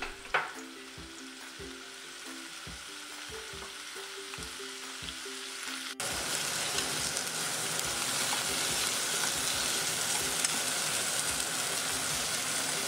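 Lotus root, carrot and shiitake sizzling in sesame oil in a frying pan over medium heat while being stirred with chopsticks. Quiet for the first half, then a louder, steady sizzle from about six seconds in.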